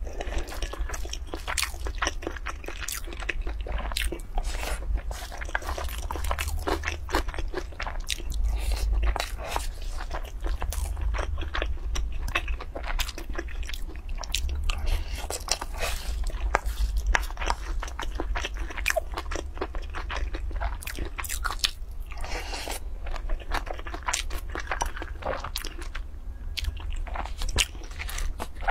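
Close-miked chewing and crunching of a spicy rice dish with shredded vegetables, with many small irregular mouth clicks and crackles.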